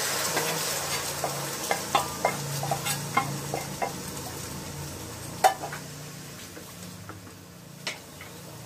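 Chili garlic sauce sizzling as it is poured into a hot non-stick wok, the sizzle slowly dying down. A wooden spatula scrapes and taps the last of the sauce out of a small pan, with a sharp knock about five and a half seconds in and another near the end.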